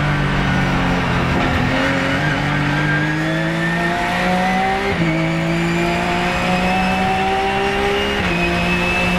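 Porsche 997 GT3 Cup's flat-six engine heard from inside the race car's cockpit, pulling under acceleration with its pitch climbing steadily. Two quick upshifts drop the pitch, about five seconds in and again near the end.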